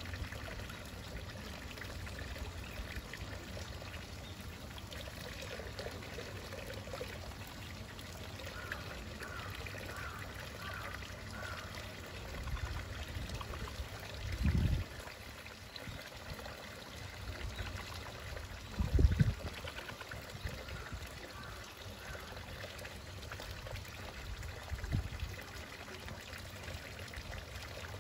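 Thin falling streams of water from a hot-spring spout bath splashing steadily into the pool. A few brief low rumbles break in; the loudest comes about two-thirds of the way through.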